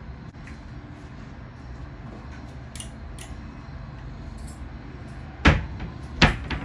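A low steady hum with a few light clicks, then two sharp knocks about three-quarters of a second apart near the end, like household items or doors being knocked shut.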